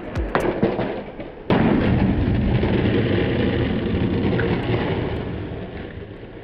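A few faint clicks, then a skateboard lands with a sudden thud about a second and a half in and its wheels roll on concrete, the rolling fading slowly out.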